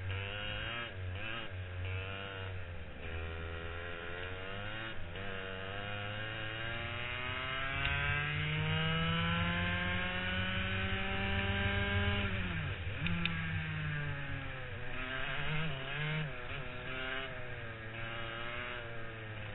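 Onboard sound of a racing kart's engine on a lap of a wet track. The revs rise and fall through the corners, then climb steadily for several seconds along the straight, where it is loudest. About twelve seconds in the revs drop sharply as the driver lifts for the next corner, then pick up again.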